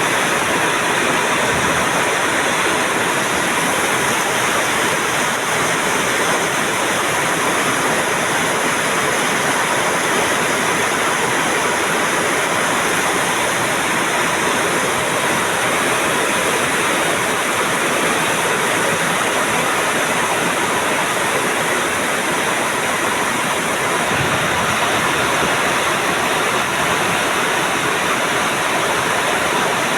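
Heavy rain pouring down, a loud, even hiss that does not let up.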